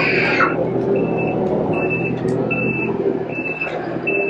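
Vehicle backup alarm beeping, a high steady beep a bit more than once a second, over the steady hum of an engine running.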